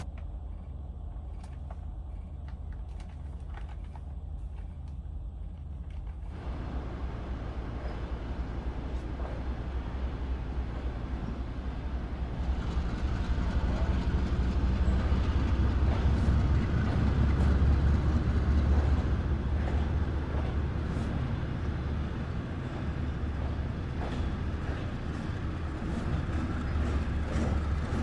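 Soviet-built sleeper train rolling on the rails: a steady low rumble with scattered clicks. A wider rushing noise joins about six seconds in, and the rumble grows louder toward the middle.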